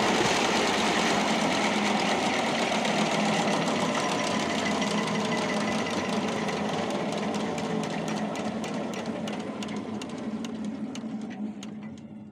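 A flour mill driven by a Belarus tractor engine running down: the steady mechanical clatter slowly falls in pitch, its rhythmic knocks spread further apart, and the noise fades away near the end as the mill and engine slow to a stop after the grinding is done.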